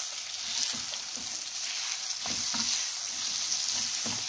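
Amla (Indian gooseberry) segments sizzling in hot mustard oil with fennel and fenugreek seeds in a black metal kadhai, with a few soft scrapes as a spatula stirs them against the pan.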